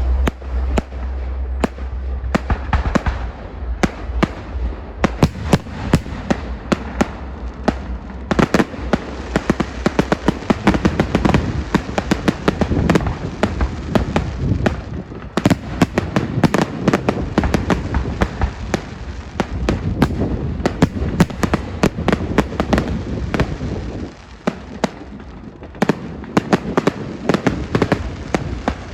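Fireworks display: a rapid, continuous barrage of bangs and crackles, thinning out briefly about twenty-four seconds in before picking up again.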